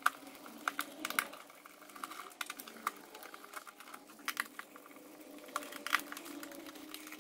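Hand screwdriver backing out the small screws of the SNOO bassinet's metal top plate: irregular small clicks and taps of the tool on the screws and plate.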